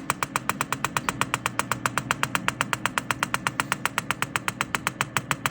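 PEMF8000 Pro pulsed electromagnetic field therapy machine clicking steadily with each field pulse, about ten sharp clicks a second. The click rate follows the pulse rate, here set fast.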